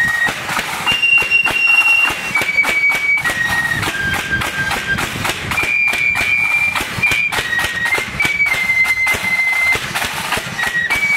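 Marching flute band playing a tune in unison on flutes, the melody moving up and down in held notes, with drums beating out a steady marching rhythm underneath.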